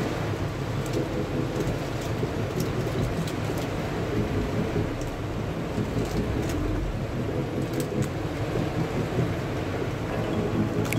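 Torrential rain pouring down in a steady, dense hiss, with a low rumble underneath and scattered sharp taps of drops.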